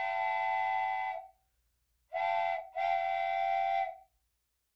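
Steam locomotive chime whistle: a long blast ending about a second in, then a short blast and a longer one, each a chord of several steady tones.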